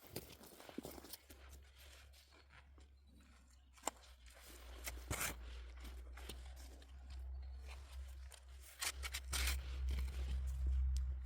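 Potatoes being dug and handled in garden soil: scattered crunches, scrapes and knocks, over a steady low rumble that grows louder near the end.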